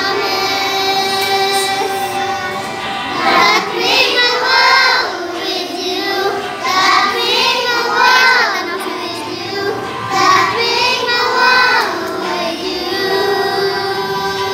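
Young children singing a song together, in held phrases that rise and fall in pitch.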